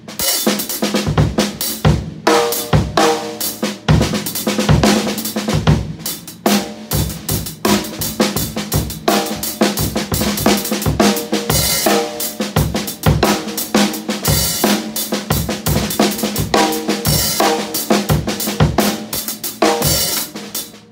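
Drum kit groove played with sticks: Zildjian A New Beat hi-hats played steadily, with snare drum and bass drum hits and occasional cymbal strikes.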